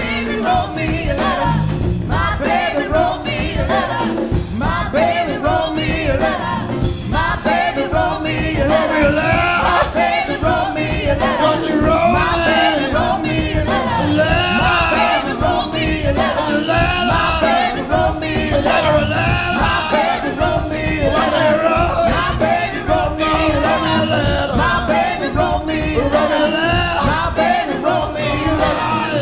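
Large live band playing a rock-soul number, with drums, bass, electric guitars, keyboards and a horn section, and a group of voices singing together over a steady beat.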